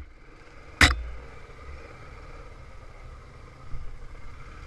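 Honda TRX500 Foreman ATV engine running steadily at low revs, with one sharp knock about a second in.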